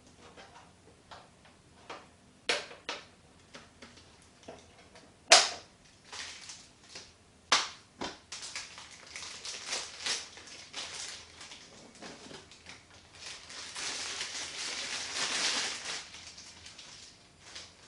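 Handling noises: scattered clicks and sharp knocks, the loudest about five seconds in, then a stretch of rustling from about eight seconds on.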